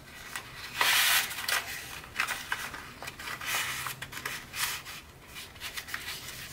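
Stiff Tant origami paper rustling and crinkling as a pleated tessellation is handled and its folds pressed into place, in short irregular bursts, the loudest about a second in.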